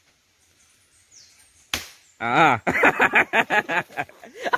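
A single sharp crack a little before halfway, followed at once by a man's loud cry of "Ah!" and then a run of quick, short voice sounds.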